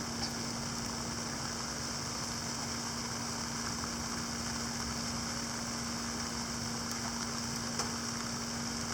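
Steady rain falling, an even hiss, over a constant low mechanical hum, with a couple of faint ticks of drops.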